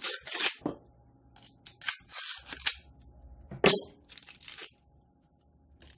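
A cardboard cream cheese box being torn open and the foil-wrapped block inside crinkling as it is handled, in a series of short crackles and rustles with quiet gaps, the sharpest a little before four seconds in.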